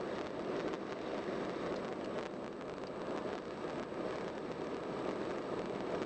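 Car driving along a highway, a steady rush of tyre and road noise.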